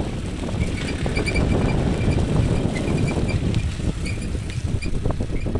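Open-topped safari jeep driving along a rough track: a rough engine-and-road rumble with wind buffeting the microphone, and short high-pitched chirps repeating over it.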